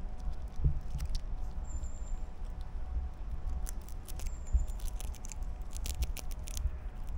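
Grey squirrel gnawing a nut held in its paws: rapid crisp clicks and crunches that come in clusters about halfway through and again about six seconds in, over a low rumble.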